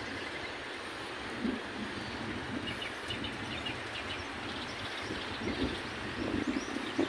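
Outdoor ambience: a steady rushing noise with uneven low rumbles, and a small bird chirping a quick run of short notes about three seconds in.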